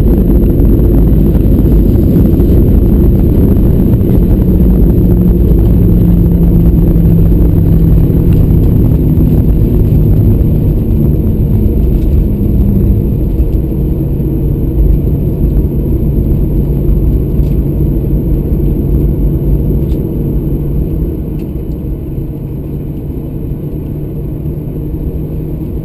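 Boeing 737-800 cabin noise just after landing: the CFM56-7B engines and the roll of the wheels make a heavy, loud rumble as the jet decelerates down the runway. The engine tone falls and the noise eases off about halfway through, as the aircraft slows toward taxi speed.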